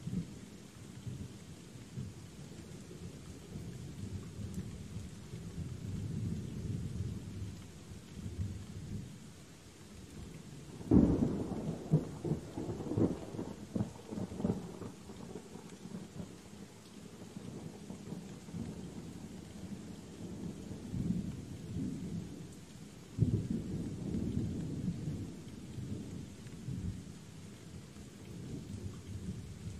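Thunderstorm: steady rain with rumbling thunder. A sudden loud thunderclap about eleven seconds in rumbles on for several seconds, and another peal breaks out about twenty-three seconds in.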